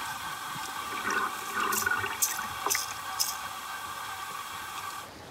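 Water heard through an underwater camera: a steady hiss with a few sharp clicks about two to three seconds in. It cuts off just before the end.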